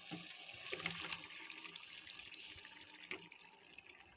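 Chicken pieces sliding from a bowl into a pan of simmering tomato masala: soft wet plops and squelches, with a few light knocks mostly in the first second or so, then quieter.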